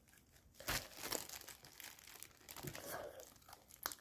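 Faint crinkling and crunching of fried chicken being handled and bitten into, in short crackles that are loudest about a second in, with a sharp click near the end.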